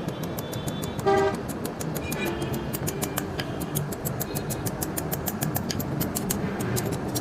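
Rapid, evenly spaced strokes of metalwork, about six a second, over steady street noise, with a short vehicle horn toot about a second in.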